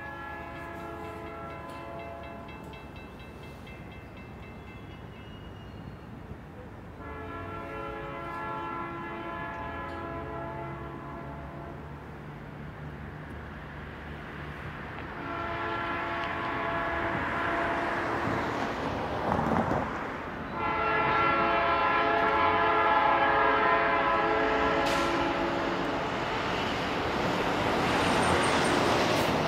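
Freight train's diesel locomotive horn sounding four long blasts, each a chord of several notes. From about halfway, the rumble of the approaching diesel locomotives rises under the horn and the whole grows louder.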